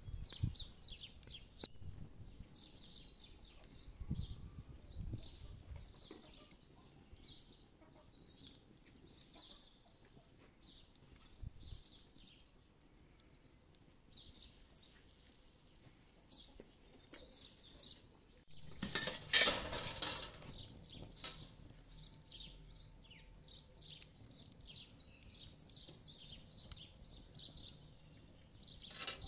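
Small birds chirping in quick, repeated high calls. A few low thumps come in the first seconds, and a loud rushing noise lasting about a second comes about two-thirds of the way through.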